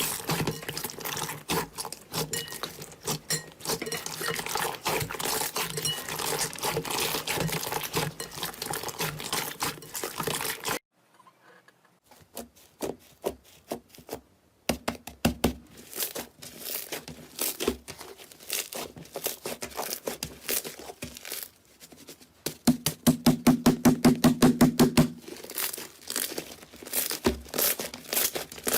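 Slime being squeezed, stretched and poked by hand, making dense sticky clicks and crackling pops. It cuts out suddenly for about a second, and near the end there is a quick run of rapid pops.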